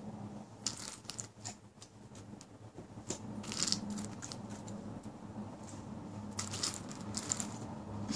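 German shepherd crunching food with her teeth, in three short bouts of crisp crunches: about a second in, around three to four seconds in, and again between six and seven and a half seconds.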